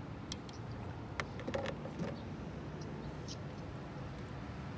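A few light, sharp clicks and taps as a freshly caught sunfish is brought in and handled in a canoe, over a faint steady low background noise.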